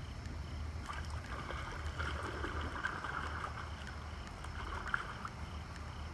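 Shallow creek water splashing and sloshing for a few seconds as hands scoop wet clay from the creek bed, over a steady low rumble.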